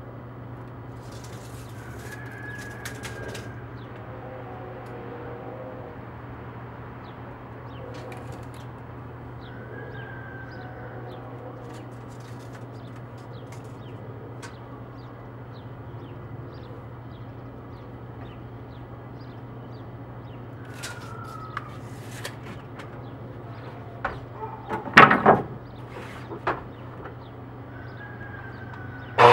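Wooden deck boards knocking and clattering several times near the end as they are handled, over a steady low hum with a few short, falling bird chirps.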